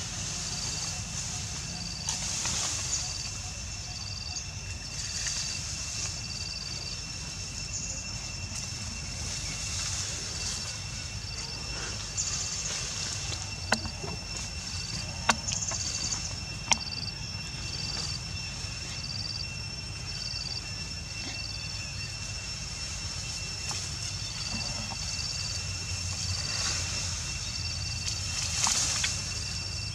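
Outdoor ambience: a steady high-pitched whine with a faint high pulse about once a second, over a low rumble. Three sharp clicks come near the middle, and a few brief rustling swells come and go.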